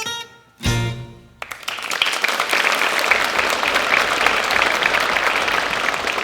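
A last strummed acoustic guitar chord rings and fades, then applause breaks out about a second and a half in and keeps going.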